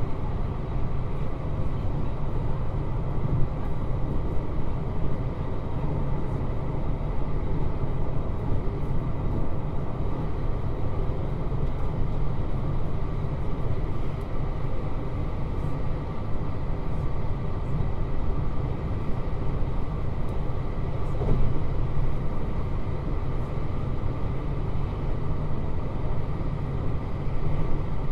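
Running sound of a JR Hokkaido 721 series 3000-subseries electric train at steady speed, heard inside the car: a continuous low rumble of wheels on rail.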